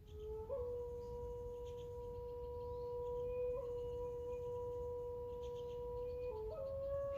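A steady, pure held tone with a faint octave above it, stepping to a new pitch about half a second in and again near the end. Faint bird chirps sound behind it.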